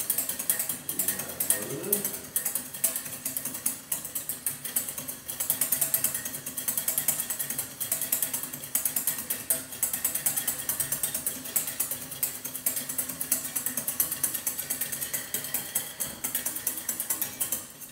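Wire whisk beating egg yolks and reduction in a small stainless steel saucepan: a rapid, steady clatter of the wires against the pan. The hollandaise base is being whipped to a foam and has not yet thickened.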